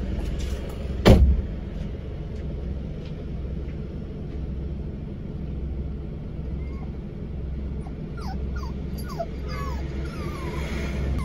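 A car door shuts with a single thump about a second in, over the steady hum of the idling car with its air conditioning running. Near the end, a dog shut in the car whimpers in a run of short, falling whines.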